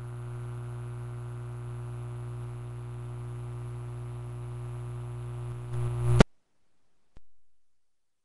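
Steady low hum with hiss, swelling briefly louder just before it cuts off abruptly about six seconds in; a single click follows about a second later.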